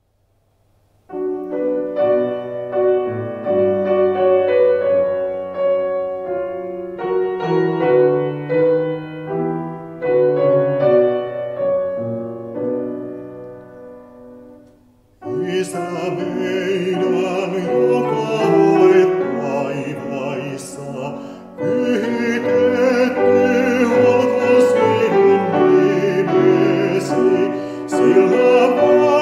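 Piano playing a slow classical introduction. It begins about a second in, fades almost away near the middle, then comes back louder and fuller.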